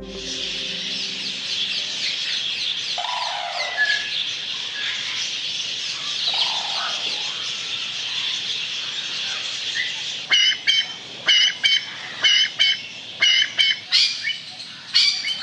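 A dense chorus of small birds chirping, with a couple of brief lower calls. About ten seconds in, a loud, sharp bird call starts repeating about twice a second over the chorus.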